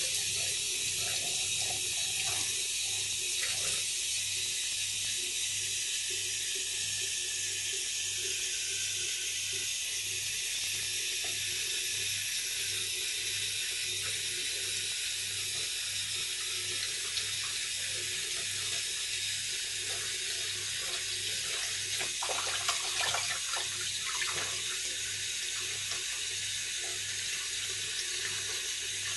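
Kitchen mixer tap running steadily into a stainless-steel sink, the stream splashing over a phone and a tablet held under it. The splashing briefly gets louder and more irregular about three quarters of the way through as the device is moved in the stream.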